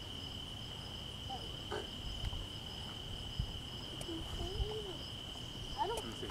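Insects chirring in the woods: one steady high-pitched drone with a fainter, evenly pulsing note above it.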